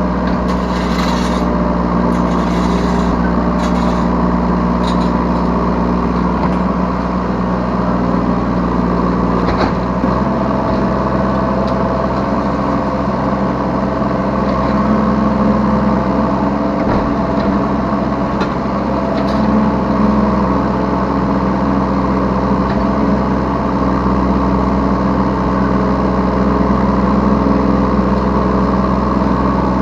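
Yanmar B3Σ 3-ton mini excavator's diesel engine running steadily as heard from the operator's seat, its note shifting several times as the hydraulics take load. A few short knocks sound in the first few seconds and again about ten seconds in.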